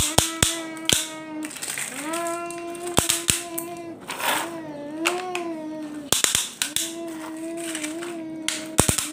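A child's voice singing or humming long, steady notes, with a wavier phrase in the middle, while hard plastic toys click and clack together several times.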